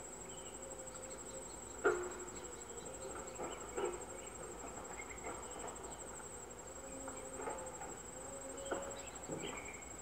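A steady, high-pitched insect trill runs throughout, with a few short knocks, the loudest about two seconds in and others near four and nine seconds.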